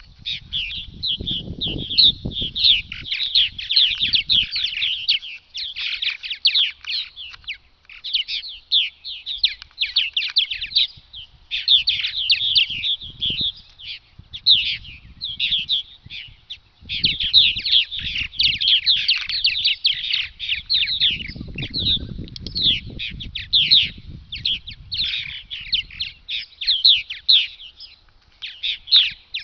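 A colony of purple martins calling: a dense, unbroken stream of quick, overlapping chirps from many birds at once, with low rumbles now and then.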